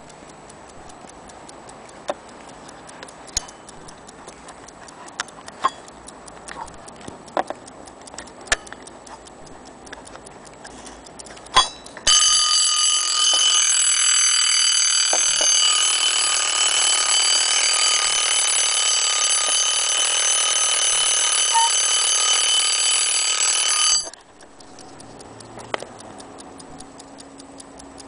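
Antique French alarm clock ticking steadily with a few handling clicks, then its alarm bell ringing loudly and continuously for about twelve seconds before cutting off suddenly, the ticking going on after.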